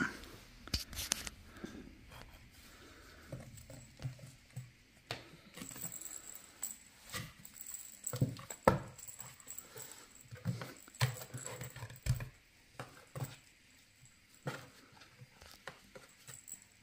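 A cat rolling and batting at a string toy inside a cardboard box: irregular scratches, rustles and soft knocks on the cardboard.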